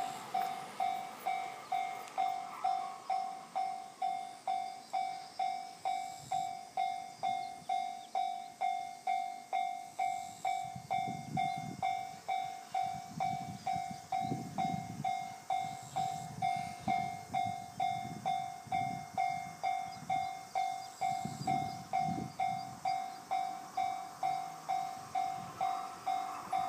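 Japanese railway level-crossing warning bell ringing its steady, even 'kan-kan' strokes, about two a second, each stroke dying away before the next. A low rumble comes and goes in the middle.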